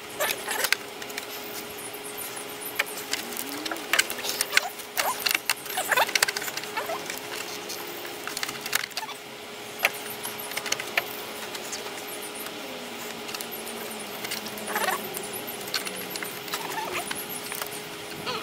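Irregular clicks, taps and light clatter of hand tools and parts being worked in a car's engine bay.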